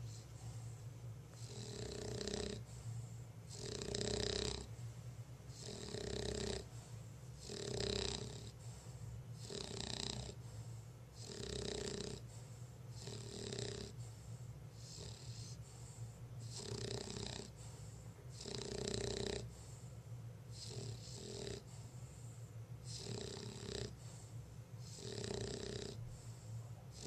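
English bulldog snoring in a steady rhythm, one snore about every one to two seconds, some coming in quick pairs.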